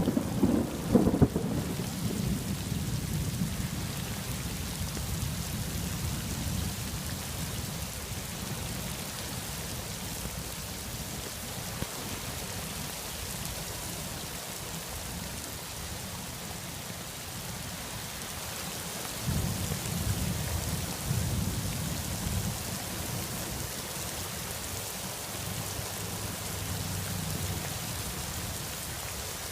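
Heavy thunderstorm rain falling steadily, with rolling thunder rumbling low at the start and fading away, then rumbling again about two-thirds of the way through.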